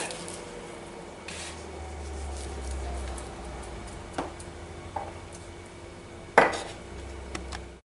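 A spoon knocking lightly against the metal inner pot of an electric pressure cooker while foam is skimmed off boiling beans. There are a few separate clinks, the loudest about six seconds in, over a low steady rumble.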